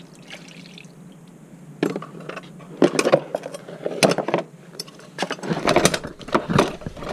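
Excess water from wet paper pulp pouring and splashing out of a metal fire-brick press mould into a paint tray, in a run of splashes starting about two seconds in.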